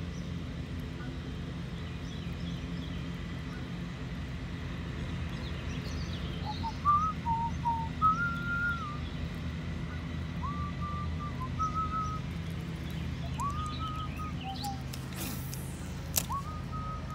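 A man whistling a slow tune in held notes with short slides between them, starting about six seconds in, over a steady low background rumble. A sharp click comes near the end.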